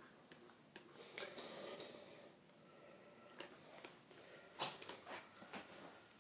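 Faint, irregular clicks and taps over quiet room tone.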